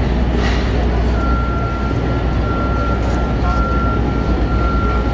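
Steady low rumble of city traffic, with a repeating electronic beep, a held tone about once a second, starting about a second in.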